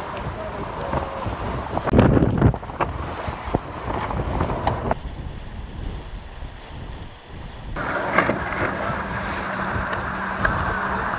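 Wind buffeting the microphone on a heeled-over racing yacht under sail, with water rushing along the hull. It is loudest in a sudden gust about two seconds in.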